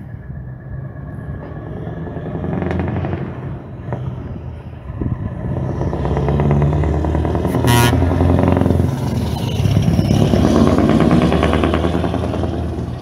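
Scania V8 truck with an open exhaust driving towards and past, its engine getting louder as it nears and loudest near the end as it goes by. A short sharp burst sounds about eight seconds in.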